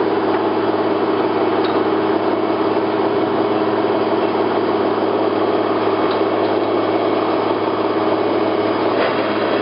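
Select 1880GH gap-bed engine lathe running steadily, with an even machine hum from its motor and gearhead.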